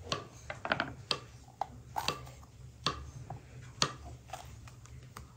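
Irregular light knocks and clicks of kitchen utensils and dishes being handled, about a dozen in a few seconds. The sharpest comes about two-thirds of the way through.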